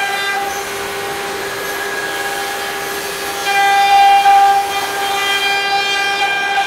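CNC router spindle whining at a steady high pitch as its bit cuts grooves into a wooden panel. The whine grows louder and brighter about three and a half seconds in.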